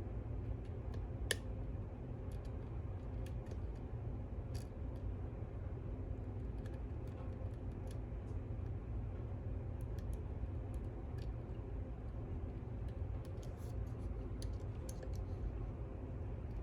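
Small metal clicks and scrapes of a lock pick working the pins inside a lock, scattered and irregular, with a sharper click about a second in and a busier run near the end, over a steady low hum.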